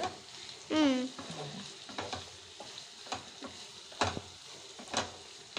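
Wooden spatula stirring drumstick and brinjal fry in a nonstick pan over a light sizzle of frying, with several sharp scrapes and knocks of the spatula against the pan.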